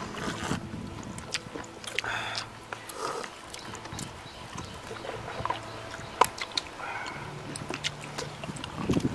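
People eating cooked pork with their mouths close to the microphone: wet chewing and lip-smacking, with many short sharp clicks scattered through.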